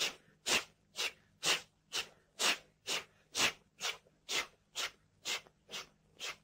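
Rhythmic breathy 'chuh-chuh' puffs made with the mouth, imitating a steam locomotive's chuffing, about two a second, growing fainter in the second half.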